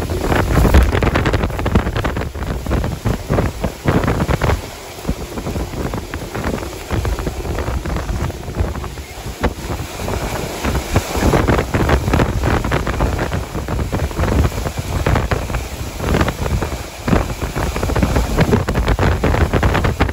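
Severe thunderstorm wind of about 70 mph gusting hard and buffeting the microphone. The loudness surges and eases with the gusts, with brief lulls around five and ten seconds in.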